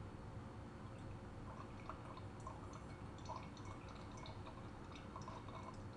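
Thin stream of heavy syrup trickling from a tipped can of fruit cocktail into a partly filled glass jar: faint, irregular dripping plinks that start about a second in.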